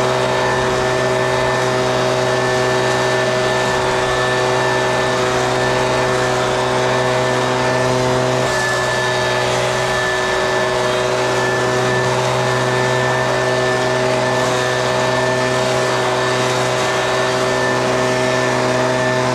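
An engine running steadily at a constant speed, a loud even drone of several fixed pitches, shifting slightly about halfway through.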